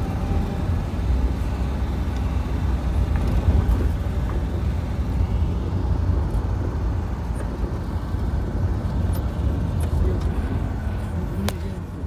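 Steady low rumble of a car driving on a paved road, heard from inside the car: engine and tyre noise. A single sharp click near the end.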